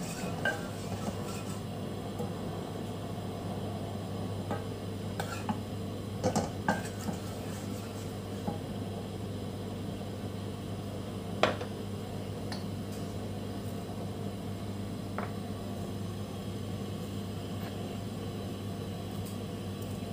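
A wooden spoon stirs in a small stainless steel saucepan, with scattered knocks of the spoon against the pot. The knocks bunch together around five to seven seconds in, and the loudest comes about eleven and a half seconds in. A steady low hum runs underneath.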